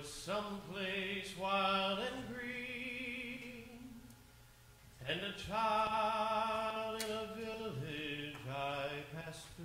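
A man singing a slow song with piano accompaniment. He sings two long phrases with held, vibrato notes, with a short break about four seconds in.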